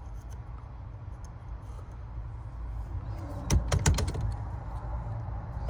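Metal clicks from a Lishi H51 pick-decoder being worked in an old Ford lock: a quick run of four or five sharp clicks about three and a half seconds in, over a steady low rumble.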